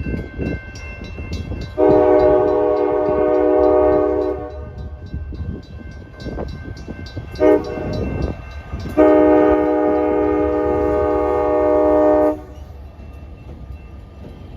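Diesel locomotive air horn, a chord of several tones, sounding a long blast, a quick short toot, then another long blast, over the low rumble of the locomotive.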